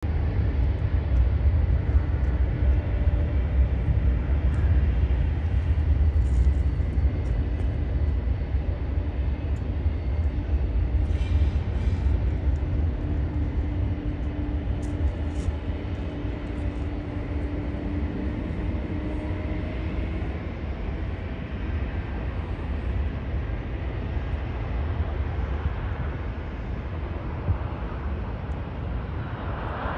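Low, steady airport rumble with distant jet noise as a Boeing 737-800 comes in to land, loudest in the first few seconds and easing off through the middle. A louder jet-engine rush starts to rise at the very end.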